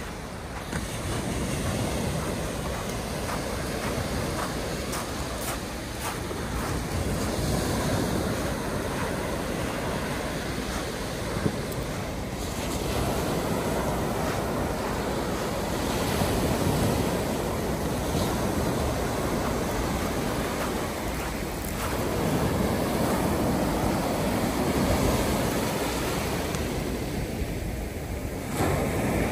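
Mediterranean sea waves washing onto the beach: a continuous rush of surf that swells and eases every several seconds.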